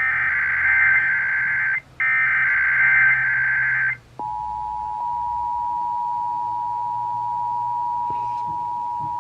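Emergency Alert System signals. First come two bursts of the buzzy, warbling SAME digital header, the data code that opens an alert, with a brief gap between them. Then, about four seconds in, the steady two-tone EAS attention signal starts and holds.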